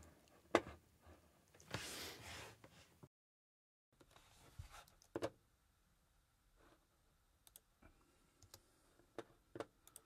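Faint, scattered computer mouse clicks and small desk-handling noises, with a brief rustle about two seconds in and a moment of dead silence just after.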